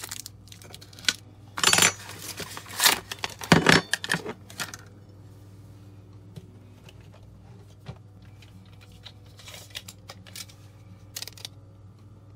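Stiff clear plastic blister packaging and its torn cardboard backing being handled: loud crinkling and clattering for about three seconds, then a few light clicks and taps.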